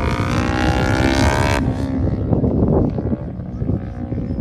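Sport motorcycle engine revving hard, its note climbing in pitch, then cutting off sharply about a second and a half in. It runs lower and rougher for a moment, then settles into a lower note that slowly climbs again as the bike accelerates around the course.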